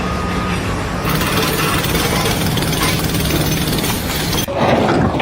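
Machinery running: a steady low engine hum under a loud, harsh hiss that cuts off about four and a half seconds in.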